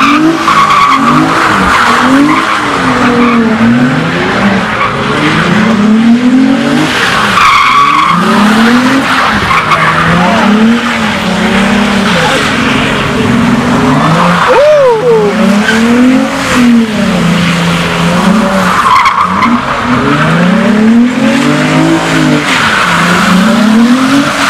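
Nissan 350Z's V6 engine revving up and down over and over, about every two seconds, as the car does continuous donuts with its rear tyres squealing and skidding.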